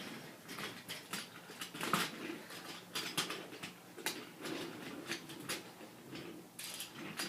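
Wooden toy trains being pushed and handled on wooden track: light, irregular clicks and knocks of wood on wood with a faint scraping patter between them.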